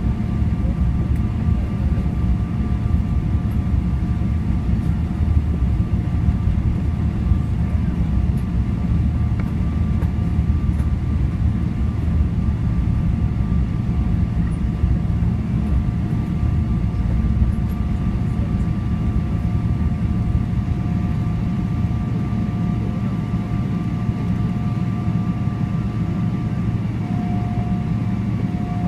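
Boeing 777-300ER cabin noise while taxiing, heard from a window seat over the wing: a steady low rumble with a steady whine from the GE90 engines at taxi power. Near the end the whine steps slightly higher.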